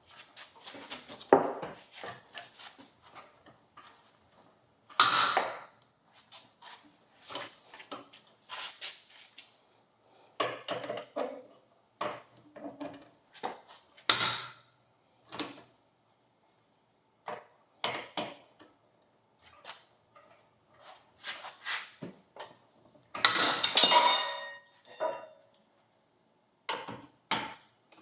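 Lug wrench clanking and clinking on the wheel's lug nuts as tight nuts are worked loose, a scatter of irregular metal knocks with one louder ringing clatter near the end.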